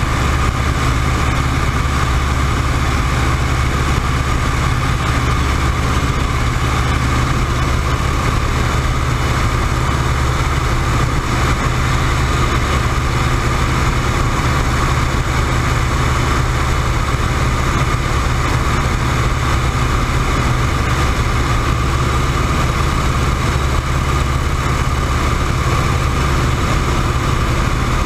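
WACO YMF-5 biplane's Jacobs radial engine and propeller running steadily at cruise power, heard from the open cockpit with the rush of the slipstream.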